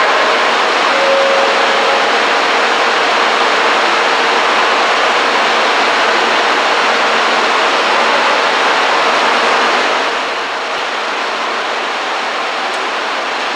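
JR Kyushu 787 series electric train rolling slowly into a station platform, a steady rushing noise that eases about ten seconds in as the train comes to a stop.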